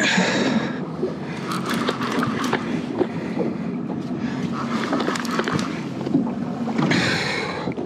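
Wind buffeting the microphone over a boat's steady low hum, with scattered short clicks. Louder hissing gusts come at the very start and again near the end.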